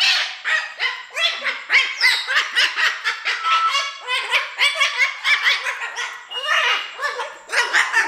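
Umbrella cockatoo giving a quick run of short, loud squawking calls, two or three a second, some rising and falling in pitch.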